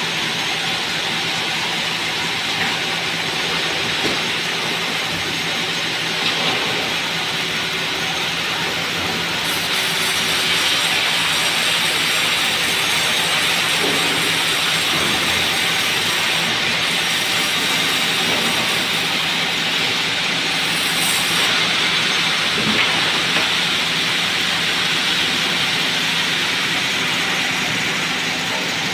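Sawmill machinery running steadily: a constant, loud mechanical noise with a faint low hum underneath and a few light knocks.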